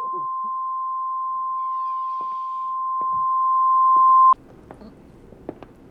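A steady, high-pitched electronic tone like a long beep, getting louder and then cutting off abruptly a little past the middle. After the cut there is quiet room tone with a few faint clicks.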